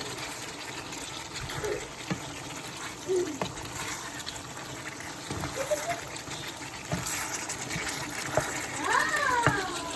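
Water running and splashing steadily, with a few small knocks.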